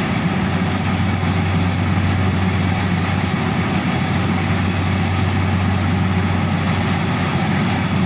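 Rice combine harvester's engine running steadily with an even low hum.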